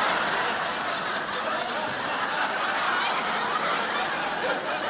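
Studio audience laughing, a dense, sustained wave of laughter that eases slightly after the first second or so.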